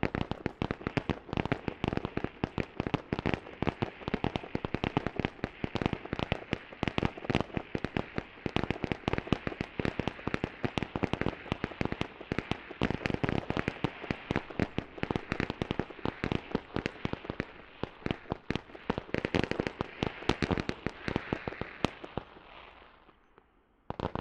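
Rapid-fire small fireworks shells launched from a wide row of firing positions, making a dense, unbroken run of sharp bangs and crackles. The barrage thins out and dies away near the end.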